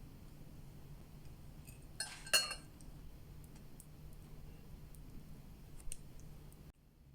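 Tableware clinking: a short cluster of ringing clinks about two seconds in and a faint click later, over a low steady hum.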